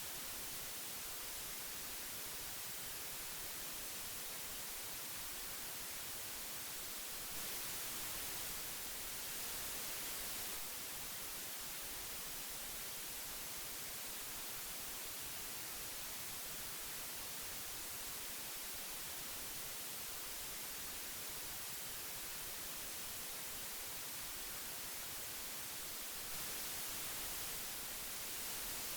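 Old analog tape hiss: a steady, even hiss weighted toward the highs, with no tones in it. It swells slightly for a few seconds twice, about 7 s in and again about 26 s in.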